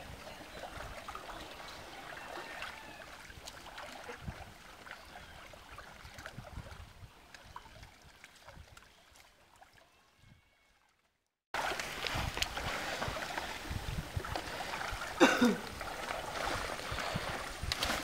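Water sloshing and splashing as a cast net packed with water hyacinth is worked by hand in shallow pond water, with rustling of the plants and net. It fades to near silence about ten seconds in, breaks off completely for about a second, then comes back louder; a brief sound falling in pitch stands out about fifteen seconds in.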